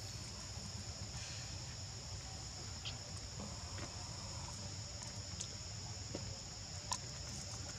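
Steady high-pitched chorus of forest insects, with a low background rumble and a few faint clicks, the sharpest about seven seconds in.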